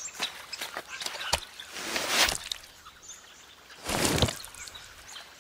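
Outdoor ambience with birds chirping, broken by two short rushing noises about two seconds apart.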